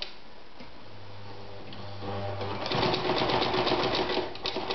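Veritas 8016/22 electric sewing machine sewing a test seam. Its motor hums low from about a second in, then the machine stitches at speed from a little past halfway with a rapid, even ticking of needle and feed, broken briefly near the end.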